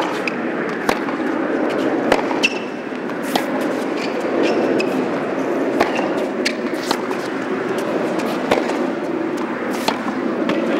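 Tennis rally on a hard court: crisp racket-on-ball strikes and ball bounces about once a second, with brief shoe squeaks, over a steady hum of stadium noise.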